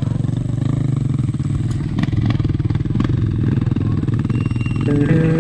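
A Kawasaki trail bike's single-cylinder engine idling steadily, with a few light clicks. Music comes in near the end.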